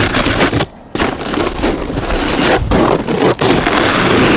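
Snowboard edge carving across packed snow: a loud rushing scrape, broken by a short gap just under a second in, then running on with a couple of brief dips.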